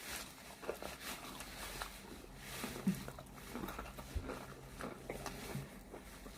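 Faint eating sounds: quiet chewing with small clicks and rustles as fried chicken wings are eaten by hand.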